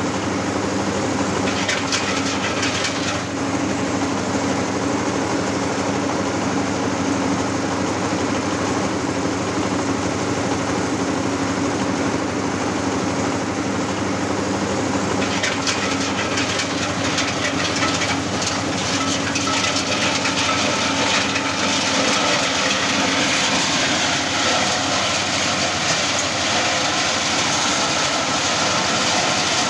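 Areca-nut peeling machine running, belt-driven by an 8 hp diesel engine: a steady engine drone under the rattle of dried nuts passing through the peeler. The rattling grows louder about halfway through.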